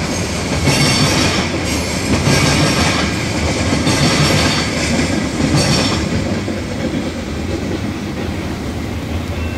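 Freight train's covered hopper cars rolling past, steel wheels clattering and hissing on the rails in surges about once a second over a steady low rumble. About six seconds in the last car clears and the hissing fades, leaving a fading rumble.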